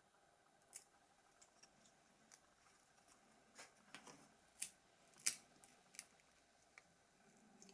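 Faint, scattered clicks and light taps as small parts of a slider mobile phone are handled during disassembly, over near silence. The clearest ones come about halfway through.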